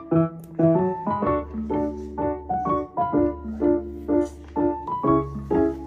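Background music: a light, quick piano tune with a steady bass line under it.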